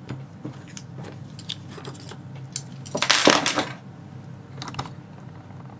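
Small metal padlock parts and tools being shifted aside on a work surface: scattered light clicks and clinks, with a louder metallic clatter about three seconds in.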